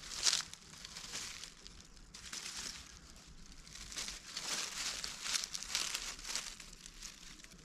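Irregular rustling and crinkling in a string of short bursts, loudest just after the start and again about four to six seconds in.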